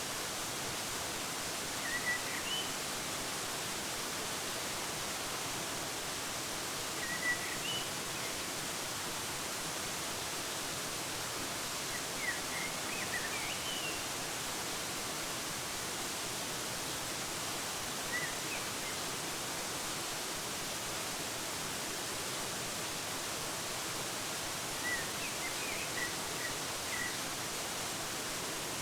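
Steady rushing of a waterfall, with a small bird chirping in short high phrases every five seconds or so.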